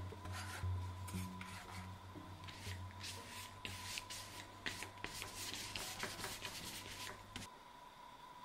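Bristle paintbrush dragged back and forth over a painted board in quick scratchy strokes, stopping abruptly near the end.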